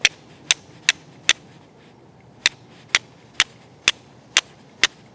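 A piece of flint striking the spine of a high-carbon steel Mora knife to throw sparks onto char cloth: ten sharp clicks, four quick ones, a pause of about a second, then six more at about two a second.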